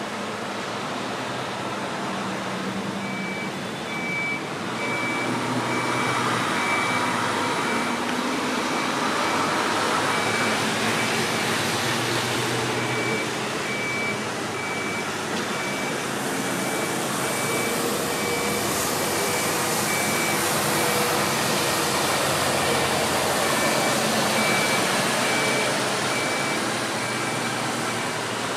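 Jet airliner engines running, a broad, steady noise that grows louder a few seconds in and stays strong, mixed with wind on the microphone. A high-pitched beep repeats about one and a half times a second through most of it.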